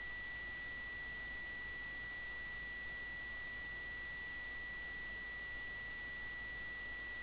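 A steady, high electronic whine with a few higher overtones over a constant hiss and low hum. It never changes.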